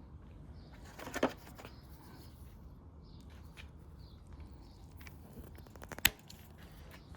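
Steel impact sockets and an extension being handled and fitted together: a ringing metallic clink about a second in and a sharp click near the end, with a few lighter clicks, over a low steady rumble.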